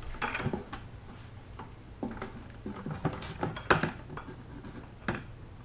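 Irregular hollow knocks and clicks of a plastic 5-gallon bucket being handled, its two hinged halves folded together and closed, with the sharpest knock a little before four seconds in.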